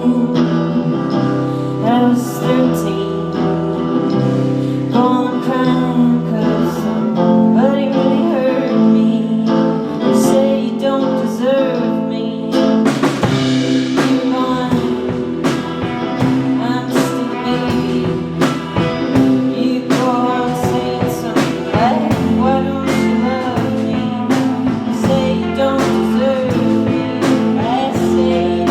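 Live indie rock band playing a song, with vocals over electric guitar and drum kit.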